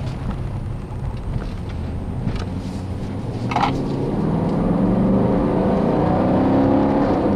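Dodge Durango R/T's 5.7-litre Hemi V8 accelerating, heard from inside the cabin. The engine note grows louder and climbs in pitch from about halfway through.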